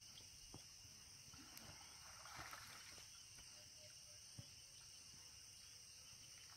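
Near silence: a faint steady high-pitched insect drone from the surrounding forest.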